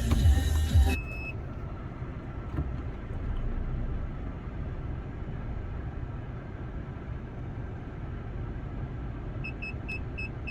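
Background music cuts off about a second in, followed by a single short high beep from an aftermarket reversing-sensor buzzer fitted to a Vauxhall Corsa D. Under a steady low car idle, the buzzer then gives a run of quick beeps, about four a second, near the end: the newly installed parking sensors signalling an obstacle behind the car.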